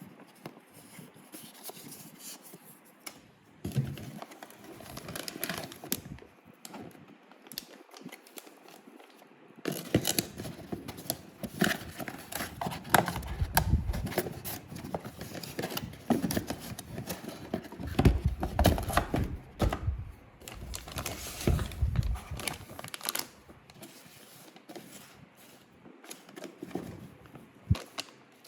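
Packaging being opened by hand: wrapping and cardboard torn, crinkled and scraped, with many small irregular clicks, busiest in the middle stretch.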